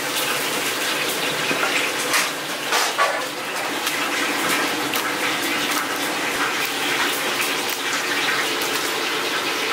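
Commercial kitchen cooking noise: a steady rush like running water, with scattered sharp knocks and scrapes of utensils on cookware.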